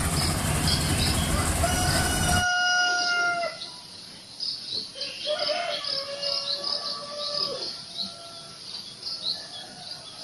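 Steady machine and field noise from a rice combine harvester, cut off suddenly about two and a half seconds in. A rooster crows twice in long calls, the second dropping in pitch at its end, over steady chirping of small birds.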